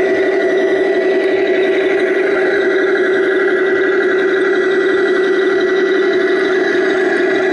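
Radio-controlled King Tiger model tank running as it pivots in place: a steady, even engine-like hum with a thin high whine held over it.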